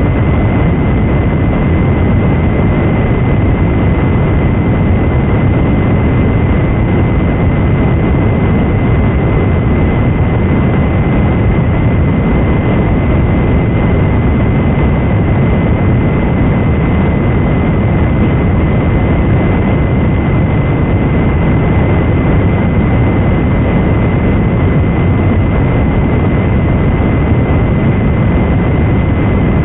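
Loud, steady static noise with a rumble in it and a faint high whistle held throughout, heard as the audio of an Emergency Action Notification EAS alert after its header tones.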